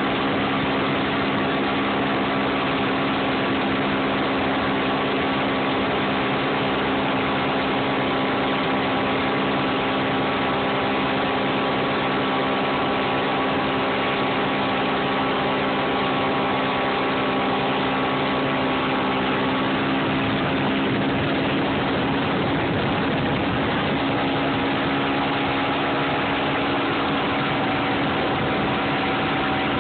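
Mercury 225 outboard motor running at speed under a steady rush of spray from the wake. The engine note shifts about two-thirds of the way through.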